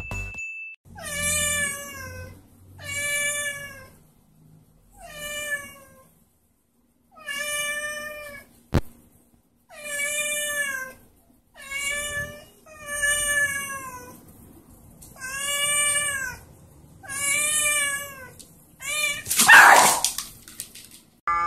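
A domestic cat meowing over and over: about ten drawn-out meows, each roughly a second long and a second or two apart. A sharp click comes about nine seconds in, and a short, loud noisy burst near the end.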